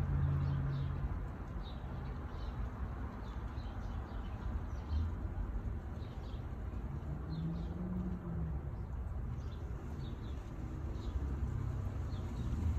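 Small birds chirping in short, high notes every second or so over a steady low rumble of distant traffic, with a low engine sound swelling and fading about two-thirds of the way through.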